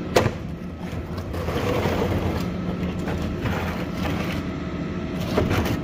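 Garbage truck engine idling with a steady low hum, with a sharp plastic knock just after the start, then scraping and rattling as a wheeled plastic trash cart is tilted and shifted on the pavement.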